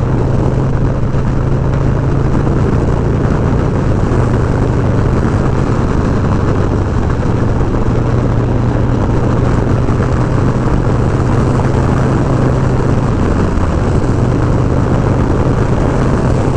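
Harley-Davidson Milwaukee-Eight V-twin running through a TBR 2-into-1 exhaust at a steady highway cruise, a constant low drone mixed with wind rush on the rider-mounted mic.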